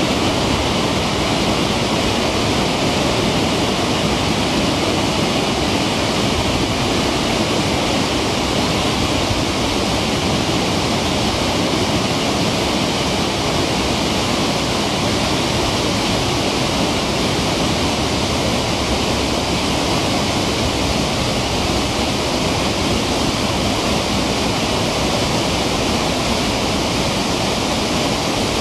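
Reservoir water spilling over a dam's stepped spillway in a steady, loud white-water rush: the overflow after several days of heavy rain.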